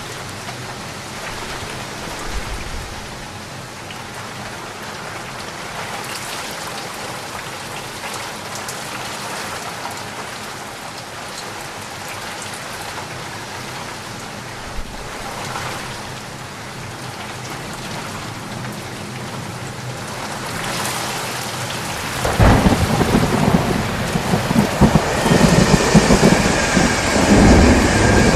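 Steady rain falling, then about three-quarters of the way in a loud, low rumble of thunder breaks in and keeps building.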